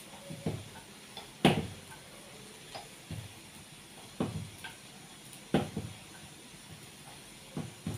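Wooden rolling pin rolling out naan dough on a steel plate, knocking and thudding against the plate about seven times at an uneven pace, loudest about one and a half seconds in.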